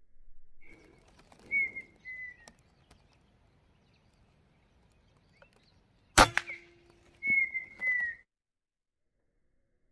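A single sharp shot from a 5.5 mm PCP air rifle about six seconds in. A bird whistles a few short, high, slightly falling notes in the first two seconds and again just after the shot.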